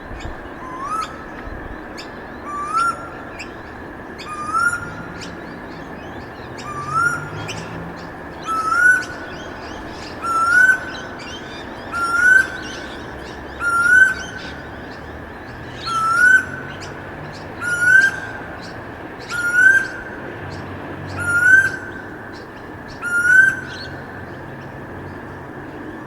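A bird repeating a single short, rising whistled call about every two seconds, thirteen times, over a steady background hiss of ambience.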